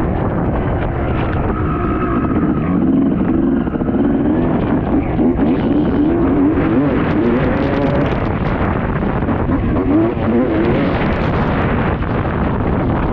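1995 Honda CR250's two-stroke engine running hard, its pitch rising and falling over and over as the throttle opens and shuts.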